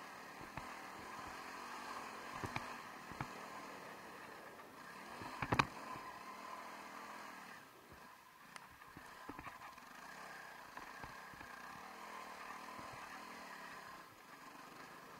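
Honda CRF300L Rally's single-cylinder four-stroke engine running as the bike is ridden, with a few sharp knocks and clatters. The loudest knock comes about five and a half seconds in.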